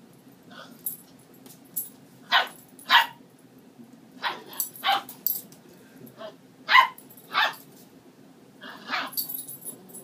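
Dog barking in short, sharp play barks, about ten of them, often two in quick succession, while a large dog and a puppy play-fight.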